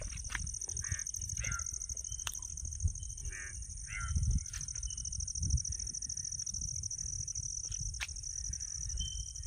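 Outdoor hillside ambience: wind rumbling on the microphone, a steady high-pitched buzz, and a few short animal calls, most of them in the first half.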